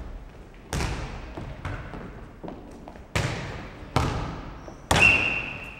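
Futnet ball being kicked and bouncing on a wooden sports-hall floor in a rally: four sharp smacks, one about a second in and three about a second apart near the end, each echoing through the hall. A brief high squeak sounds with the last smack.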